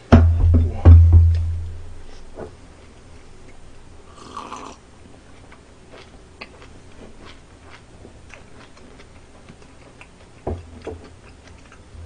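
Close-miked eating: small chewing clicks and smacks, with a brief slurp about four seconds in. Two loud low thuds come in the first two seconds and a softer one near the end, the thumping that the eater himself calls 쿵쿵쿵.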